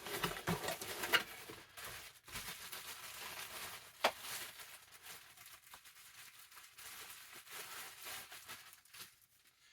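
A package being opened by hand: packaging crinkling, rustling and tearing, with sharp snaps about one and four seconds in.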